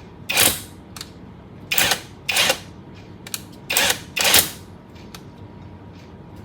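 SakerPlus 3-in-1 cordless impact wrench run with its flexible shaft attachment in a series of short trigger bursts, about half a dozen in the first four and a half seconds, each lasting a fraction of a second.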